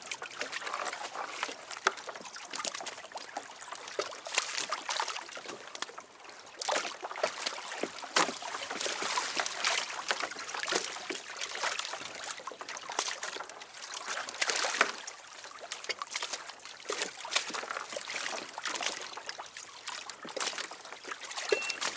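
Water sloshing and splashing against a kayak's hull, with a hooked sea bass thrashing at the surface beside it in irregular splashes.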